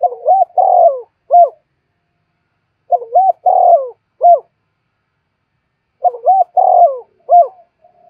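Spotted dove cooing: three phrases about three seconds apart, each a quick run of short coos closed by a separate final note.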